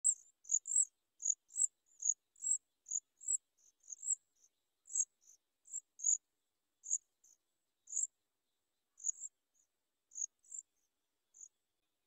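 An insect chirping: short high-pitched chirps, about two a second, stopping near the end.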